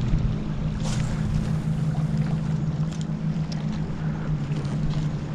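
Boat motor running at a steady low hum, with wind and water noise around it and a short knock about a second in.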